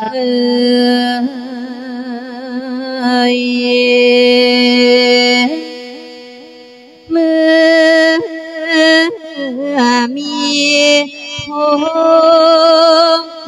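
A monk's voice singing a melodic Thai verse inviting the spirit of the dead, in long held notes that waver with vibrato over a steady drone. The line trails off about six seconds in and starts again a second later.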